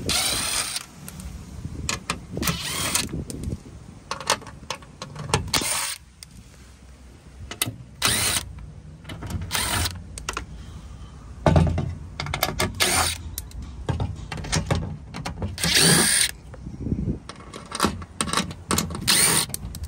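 DeWalt 20V brushless cordless impact driver running in short bursts every couple of seconds, backing out the Torx screws that hold a VW Beetle's plastic underbody tray.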